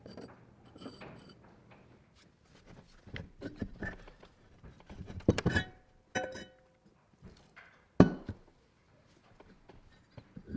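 Clunks, knocks and metal-on-metal scrapes as a 1930s Leland Electric motor is taken apart, its armature and end bell worked out of the stator housing. A sharp knock about eight seconds in is the loudest. Light scraping of debris on the bench comes first.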